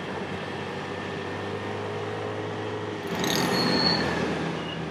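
Motor scooter engine running steadily under road and wind noise while riding in traffic. About three seconds in a louder rush of traffic swells up for a second, with a brief high squeal.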